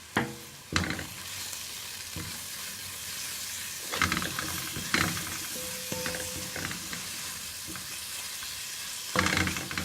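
Grated onion frying in oil in a pan with black pepper, paprika and salt, sizzling steadily. A spoon stirs it, scraping and knocking against the pan a few times: near the start, around four and five seconds in, and near the end.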